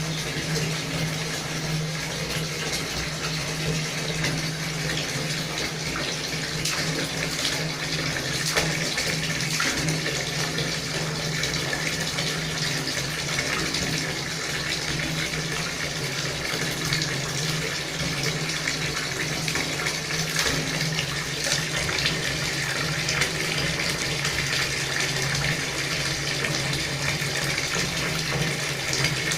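Tap water running steadily into a sink, with a steady low hum beneath and small irregular splashes.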